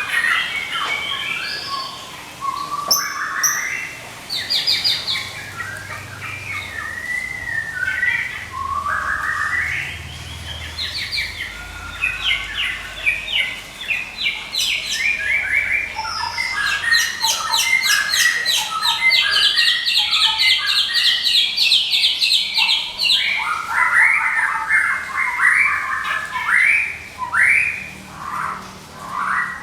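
White-rumped shama of the Medan type calling 'ngekek' almost without pause: long trains of fast, rattling repeated notes mixed with varied song phrases. This nonstop chatter is what keepers use to provoke other birds into singing and as a tutor song for them to copy.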